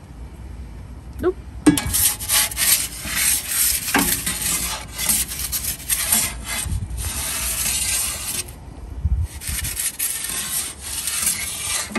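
A metal pizza turning peel scrapes and rasps across the stone floor of an Ooni Koda 16 gas pizza oven as the pizza is turned, starting about two seconds in with a short pause near the end. Under it is the low, steady sound of the gas burner running on full flame.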